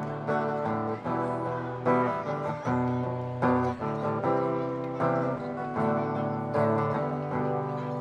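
Acoustic guitar played alone in an instrumental passage of a song, chords changing every second or so.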